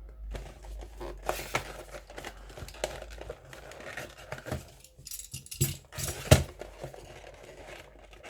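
A small cardboard box sealed all over with tape being cut and torn open: irregular crinkling, tearing and scraping with scattered clicks, and a sharp knock about six seconds in.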